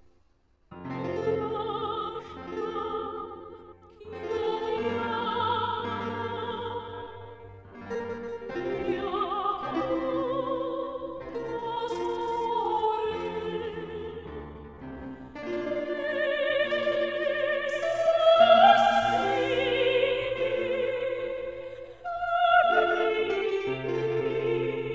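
Operatic singing with a wide vibrato over instrumental accompaniment, played back through computed sound propagation in a virtual cathedral model. It begins about a second in after a brief silence.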